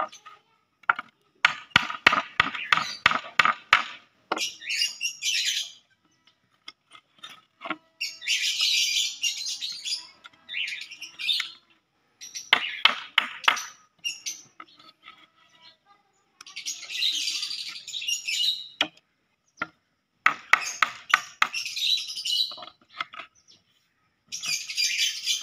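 Lovebirds chattering and screeching in repeated bursts of a few seconds each, with quiet gaps between.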